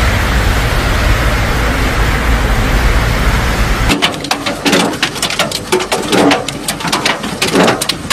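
Steady rushing spray with a heavy low rumble as an SUV ploughs through deep flood water. About four seconds in this cuts to a dense, irregular patter of sharp hits, hail pelting the ground, with a person's voice calling out over it.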